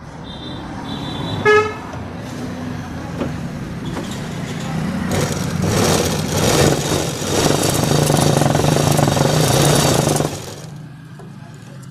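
A vehicle horn toots from the road about a second and a half in, just after two short high beeps. From about five seconds the electric motor-driven umbrella sewing machine runs a test seam, its needle mechanism clattering fast over the motor's hum, and stops near the ten-second mark.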